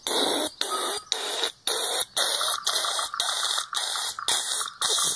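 Loud harsh hissing noise, chopped into pulses of about half a second with short gaps between them, roughly two a second, with a faint thin whistle under it in the middle.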